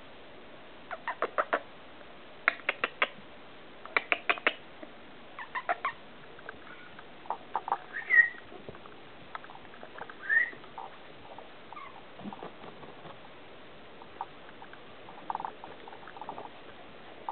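Four-week-old Goldendoodle puppies at play: short runs of three to five quick, sharp sounds come about every second and a half over the first six seconds. Softer scattered sounds follow, with two brief high rising squeaks near the middle.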